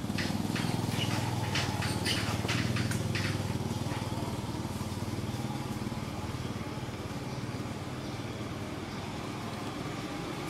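An engine running steadily with a low hum, strongest in the first few seconds and easing off a little after, with a scatter of short sharp ticks in the first three seconds or so.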